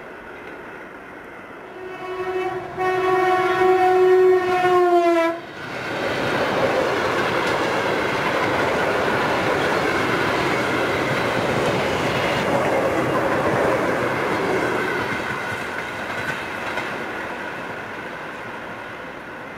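Electric commuter train sounding a horn in one blast of about three seconds as it approaches, the pitch sagging as it cuts off. The train then passes at speed, its noise steady for about ten seconds before fading as it moves away.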